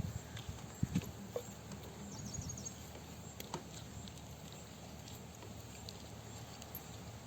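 Faint, sparse taps and rustles of a banana-leaf parcel being tied and handled, over a low steady background.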